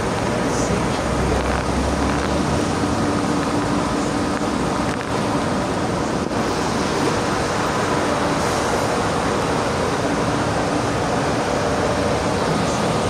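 A CNR 3000-series electric commuter train standing at a station platform with its doors open, its onboard equipment giving a steady hum over a constant rushing noise.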